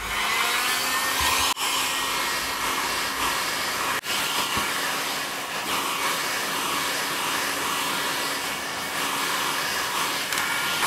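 Electric heat gun running, its fan winding up over the first second and then blowing steadily at high speed with a rushing hiss and a steady hum.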